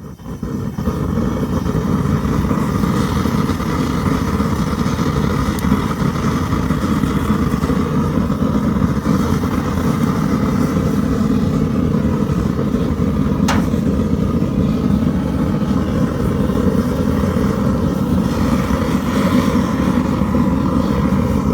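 Newly fired-up forge running: a steady rushing rumble with a faint hum, and one sharp click about halfway through.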